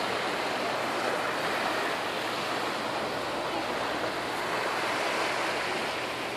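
Sea surf washing onto the shore, a steady hiss of waves.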